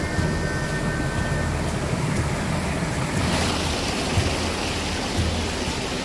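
Steady rush of running stream water, with a brighter hiss coming in about halfway through.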